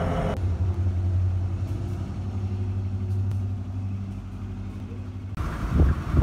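Diesel train engine running with a steady low drone as the train approaches. About five seconds in it cuts abruptly to low, uneven rumble and wind buffeting, as heard from a moving train.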